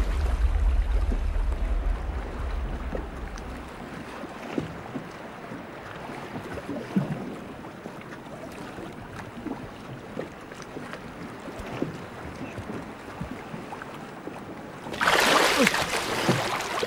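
Sea water churning and splashing as a swimmer goes under, with a low rumble that stops about four seconds in. Then a quieter wash of sea water with faint scattered pops, and a loud surge of splashing water near the end as the swimmer surfaces.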